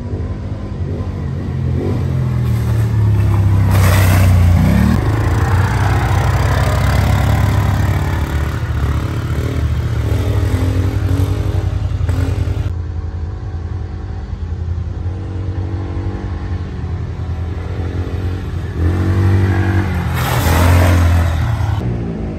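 Off-road vehicle engines, ATV four-wheelers, running and revving on a trail, the pitch climbing and falling with the throttle. Loudest around four seconds in and again near the end.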